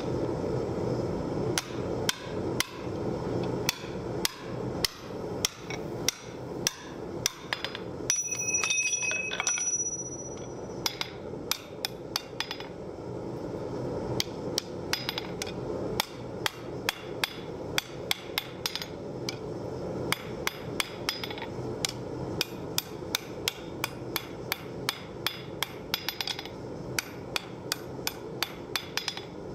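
Hand hammer striking red-hot steel on an anvil in a steady run of blows, about two a second, while the eye of a butcher's hook is drifted and shaped. A short metallic ringing comes about eight seconds in, and a steady low rushing noise lies under the blows.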